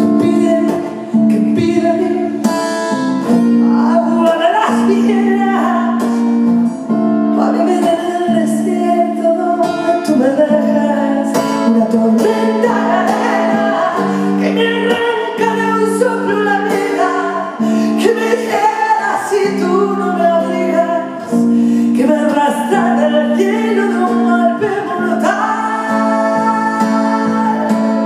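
A woman singing a slow ballad live, accompanied by acoustic guitar.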